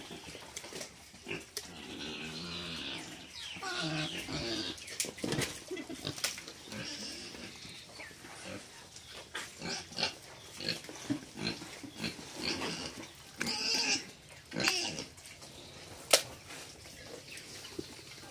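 Domestic pigs grunting repeatedly in short bouts, with a few brief clicks among them.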